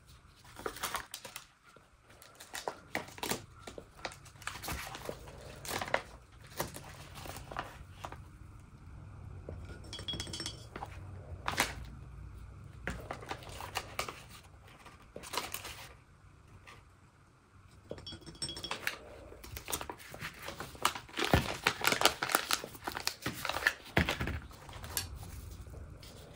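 Irregular rustling and crinkling with light clinks and taps, like hands handling paper and small containers on a work surface. The handling is busiest near the end.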